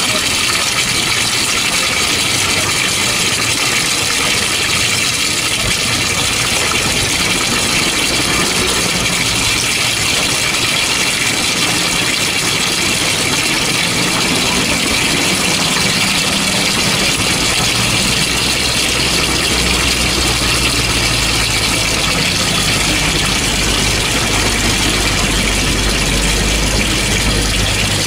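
Coin-operated washing machine running: a steady mechanical noise with a low hum that comes in about two-thirds of the way through.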